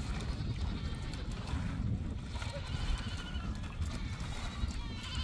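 Wind rumbling on the microphone, with a goat bleating in the background: a wavering call about two and a half seconds in and another near the end.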